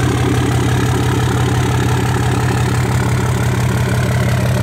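A 6.7-liter Cummins turbo-diesel idling steadily through a 5-inch turbo-back exhaust with no muffler, with a deep rumble that sounds like a dump truck.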